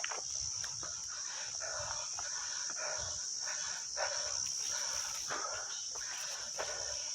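Steady high-pitched insect drone, with irregular rustling and scattered soft clicks underneath.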